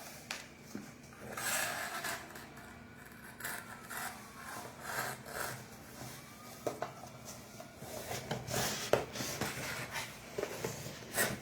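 Packaging being handled and opened: uneven rubbing and scraping of cardboard and plastic, with a few light clicks and knocks.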